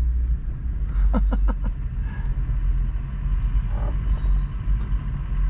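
Low, steady rumble of a Land Rover off-road truck's engine at idle, with a few short knocks about a second in.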